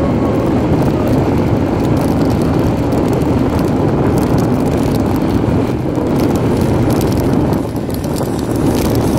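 Steady rumble of a moving vehicle on a concrete road, with wind rushing over the phone's microphone; it eases off slightly near the end.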